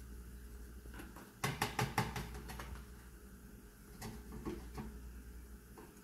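A spoon knocking and scraping against a blender jar: a quick run of about six sharp taps about one and a half seconds in, then a few softer clicks around four seconds in.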